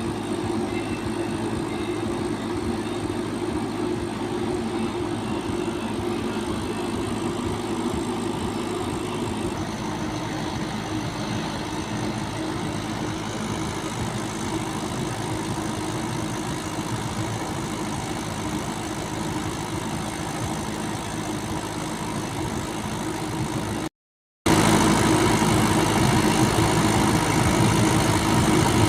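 Heavy diesel machinery engine running steadily, likely the JCB 3DX backhoe loader at work. The sound cuts out for half a second near the end and comes back louder.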